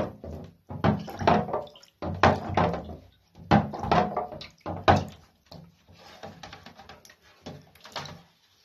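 Water sloshing in a shallow tray, rocked back and forth in an uneven rhythm of about one or two surges a second, rinsing the unexposed chemical out of a freshly exposed cyanotype print. The surges grow quieter in the last few seconds.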